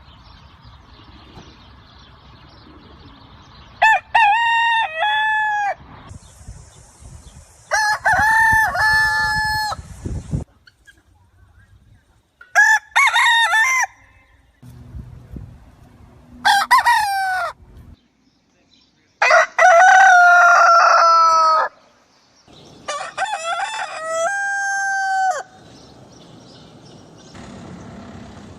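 Roosters crowing: six separate full cock-a-doodle-doo crows, each lasting about two seconds, with short gaps between. The background changes abruptly between crows, as separate recordings are cut together.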